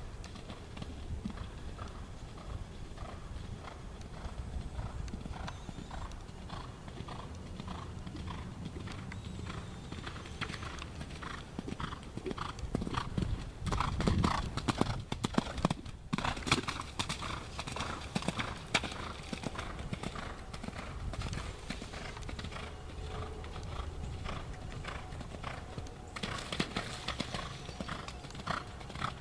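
Hoofbeats of a Thoroughbred horse cantering on sand footing, a steady repeating rhythm of dull thuds. The hoofbeats grow loudest about fourteen seconds in as the horse passes close.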